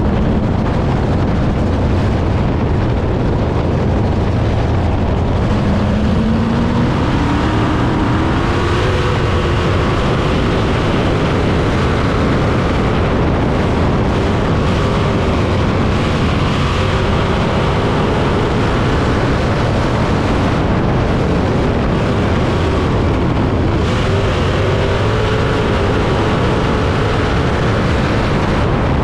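Onboard sound of a 305 winged dirt sprint car's small-block V8 running at speed, loud and steady, its pitch rising and falling as the car goes around the track.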